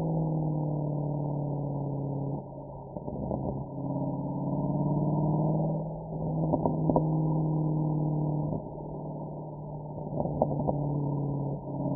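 Mercedes-AMG SL63's V8 exhaust at a fairly steady engine speed while driving, easing off and coming back on four times, with short sharp pops and crackles in three clusters.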